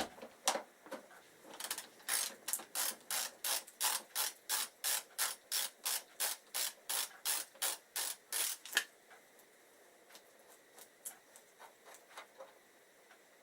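Ratchet wrench clicking in quick, even back-strokes, about three a second, as a fastener on a motorcycle's front brake caliper is undone. It stops about nine seconds in.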